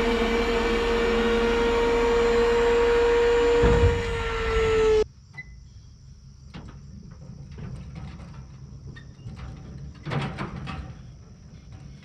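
A dump trailer's electric hydraulic pump whining steadily as it works the bed, its pitch shifting just before it cuts off suddenly about five seconds in. After that, crickets chirring steadily over a low engine rumble and a few clicks as the trailer is towed off.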